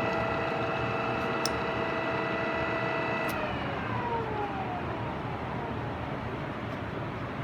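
Oya RE2-1300A radial drill press running with a steady gear whine; about three seconds in there is a click and the whine falls away in pitch as the spindle drive winds down, leaving a steady hiss of machine and shop noise.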